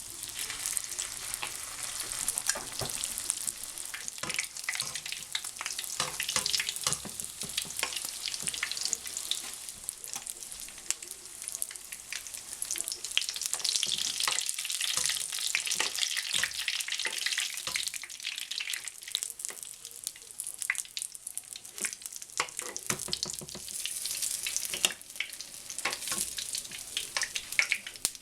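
Spring rolls deep-frying in hot oil at about 350 to 375 degrees, a steady sizzle with dense popping and crackling that stops abruptly at the end.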